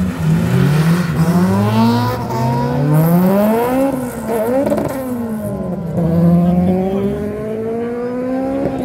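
Car engines accelerating hard in a street drag race, their pitch climbing in steps with each gear change. About halfway through the tones fall and cross, then an engine climbs again through the gears.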